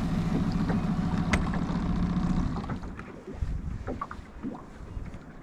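A motor running with a steady low hum stops about halfway through. After it, water slaps and knocks against the hull of a small open boat.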